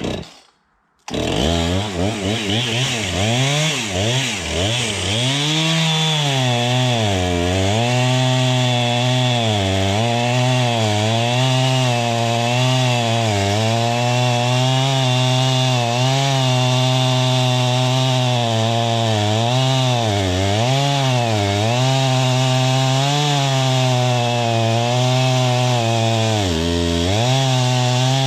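Two-stroke chainsaw cutting through the flared end of a log to square it off. The saw comes in loud about a second in and runs at high revs, its pitch sagging and recovering again and again as the chain bites into the wood.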